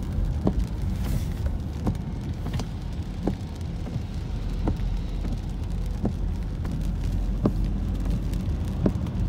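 Inside a car driving on a wet road: a steady low rumble of engine and tyres, with a regular click about every 0.7 seconds, every other click louder.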